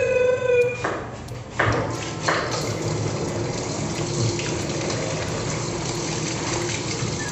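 Water running steadily from a tap into a sink, coming on about a second and a half in, after a brief high-pitched tone at the very start.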